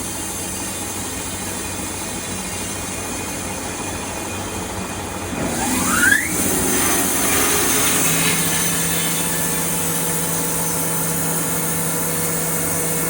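Sawmill machinery running. About five and a half seconds in, a short squeal rises sharply in pitch, and the machinery then runs on louder, with a steady hum joining a couple of seconds later.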